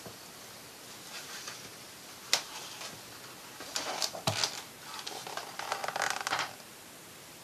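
A hardcover comic album being handled and opened: a sharp tap about two seconds in, a cluster of knocks and handling noises around four seconds, then a rustle of paper pages being leafed through that stops near the end.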